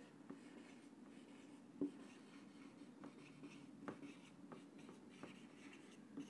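Whiteboard marker writing on a whiteboard: faint scratchy strokes and light ticks as words are written, over a low steady hum.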